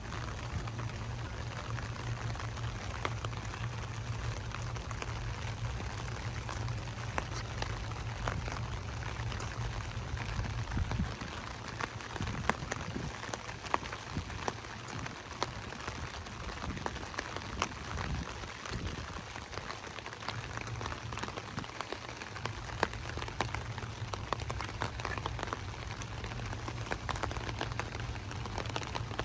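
Light rain falling, with many small drop ticks over a steady patter. Underneath runs a low hum that drops away about eleven seconds in and comes back about twenty-two seconds in.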